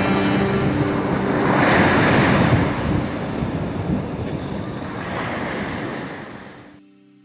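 Sea of Azov waves washing onto the shore, with wind buffeting the microphone; the surf swells about two seconds in and again about five seconds in. The wave noise cuts off suddenly near the end, leaving faint music that fades away.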